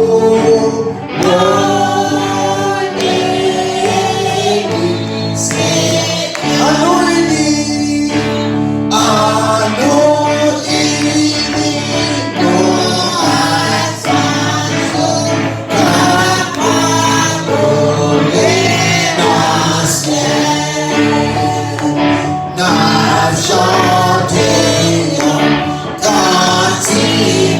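Gospel worship singing by a group of voices over steady sustained instrumental accompaniment.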